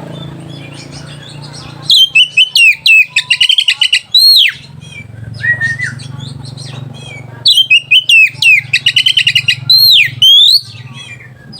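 Oriental magpie-robin singing: two loud runs of rapid, repeated whistled notes ending in sweeping slurs, with quieter twittering between them, over a steady low hum.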